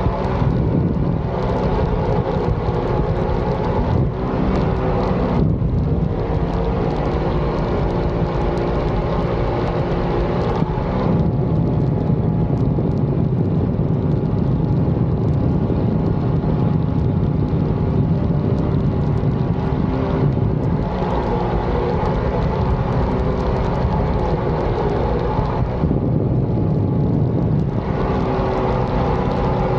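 Mini jet boat's supercharged engine running steadily under way, with rushing water and wind. The engine's pitch shifts a little as the throttle changes.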